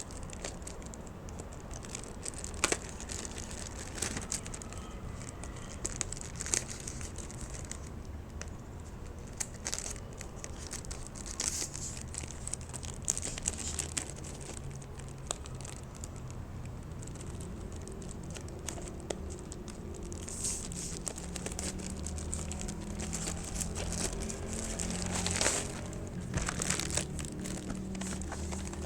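Packaging being handled and unwrapped: crinkling and rustling with sharp clicks scattered throughout, and occasional tearing.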